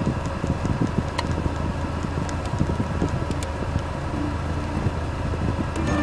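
Car stereo FM tuner giving hiss and crackle between stations as the frequency is stepped up, with a few sharp clicks over a steady low hum.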